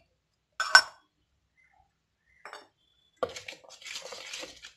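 A single sharp metal clink against a stainless steel bowl a little under a second in. From about three seconds in, a hand mixes dry flour and spice powder in the bowl with a rough rustling scrape.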